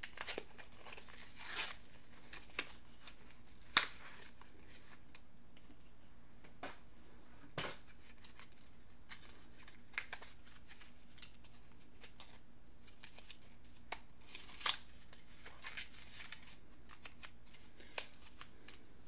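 Scattered crinkling, scraping and small clicks of a mascara and its packaging being handled and opened, with one sharp click about four seconds in.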